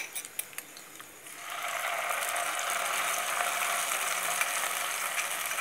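A few light clicks as ground spice paste is scraped from a glass bowl into the pan, then, about a second and a half in, hot oil starts sizzling steadily around the wet masala paste in a non-stick kadai.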